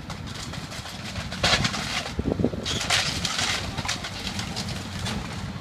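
Heavy demolition machinery running with a steady low rumble, with two louder noisy bursts about a second and a half and three seconds in.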